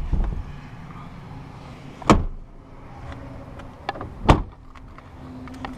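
Rear seat and doors of a Toyota Tacoma crew cab pickup being handled: three separate thumps about two seconds apart, the last the loudest.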